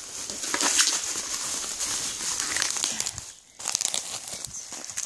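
Clear plastic wrapping crinkling and crackling as it is handled and pulled off a Nerf magazine, with a short pause a little past halfway.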